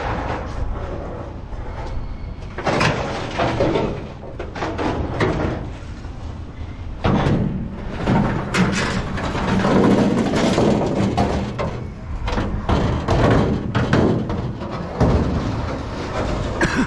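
Scrap metal being handled and moved: irregular clanks, bangs and clatter, over a steady low rumble.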